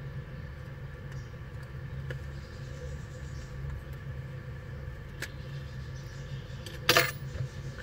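An iPhone 6s display being pried up from its frame by hand, with a faint click about five seconds in and a brief loud snap just before seven seconds as the screen comes free. A steady low hum runs underneath.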